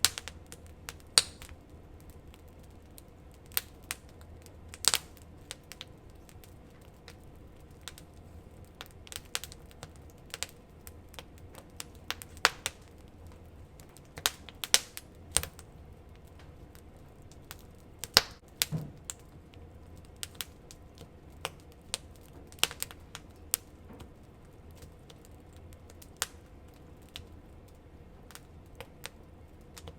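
Wood campfire crackling: irregular sharp pops and snaps, a few much louder than the rest, over a faint steady low hum.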